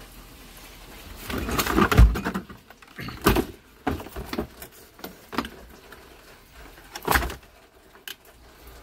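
Hands working in a car's trunk: rustling, a heavy thump about two seconds in, then scattered knocks and clicks.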